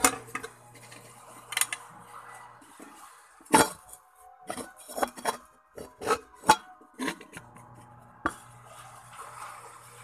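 Kitchenware clinking and knocking: a series of sharp, separate clatters, loudest about three and a half and six and a half seconds in. A low steady hum runs underneath, dropping out in the middle and returning near the end.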